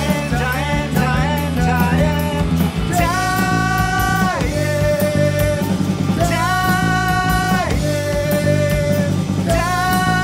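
Rock band playing: drum kit, electric guitar and electric bass, with a man singing. Three long held high notes each drop a step in pitch at their end.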